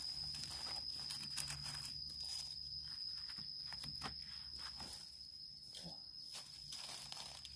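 Dry leaf litter rustling and crackling under gloved hands as wild bolete mushrooms are picked from the forest floor, in irregular clicks and snaps. A steady high-pitched whine sounds underneath.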